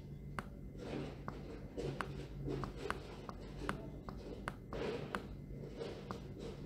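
Computer mouse being dragged and clicked to hand-write on screen: soft scraping strokes broken by about a dozen sharp, irregular button clicks, over a faint steady low hum.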